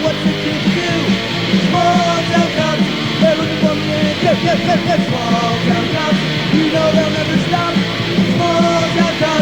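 Pop-punk band playing fast and loud on a lo-fi 1980s demo tape recording: electric guitar, bass and drums.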